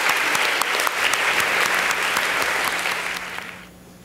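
A large audience of schoolchildren clapping together, the applause dying away about three and a half seconds in.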